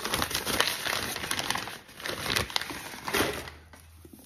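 Brown packing paper being crumpled and rustled by hand, crackling busily for about three seconds and then dying away.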